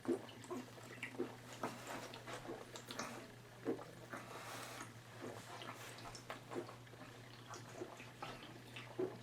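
A man gulping malt liquor straight from the bottle: soft, quiet swallows about twice a second, over a steady low hum.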